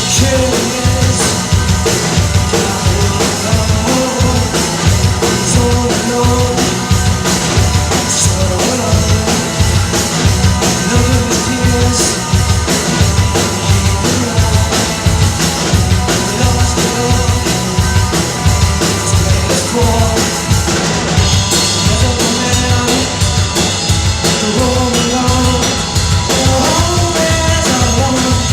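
Live band playing rock music, the drum kit keeping a steady, driving beat.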